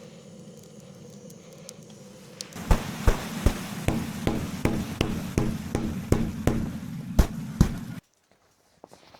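A steady low hum, then an even run of sharp thuds or knocks at about two and a half a second, which cuts off suddenly near the end.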